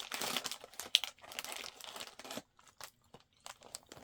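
Plastic snack wrapper crinkling as it is handled, densest in the first two seconds with a sharp crackle about a second in, then a few scattered crinkles.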